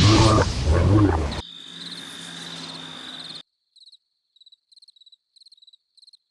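Cartoon sound effects: a loud, gravelly vocal cry for about a second and a half, then a hiss with a steady high tone that cuts off suddenly, leaving crickets chirping in short, evenly spaced pulses.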